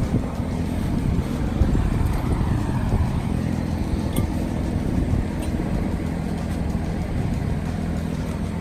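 Steady low rumble like a running motor or engine, with a couple of faint ticks.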